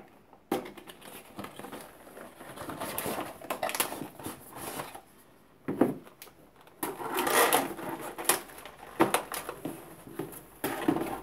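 Unboxing handling noise: a cardboard retail box being opened and a clear plastic packaging tray slid out and handled, with irregular rustling, scraping and small clicks and knocks.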